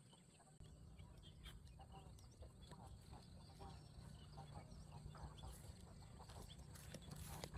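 Near silence: faint outdoor ambience, a low rumble with scattered soft ticks and rustles.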